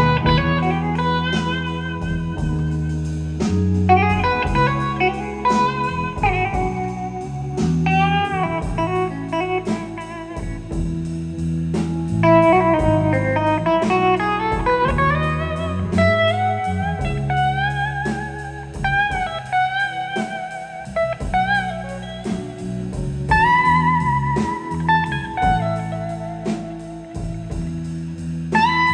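Live blues band's instrumental break: a lead electric guitar solo with bent and sliding notes over bass and drums.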